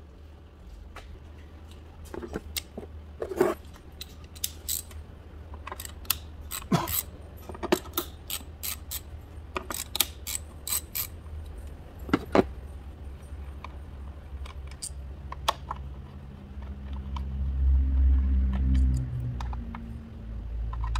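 Ratchet wrench and socket extension clicking and clinking in irregular bursts, metal on metal. Near the end a low steady rumble swells up.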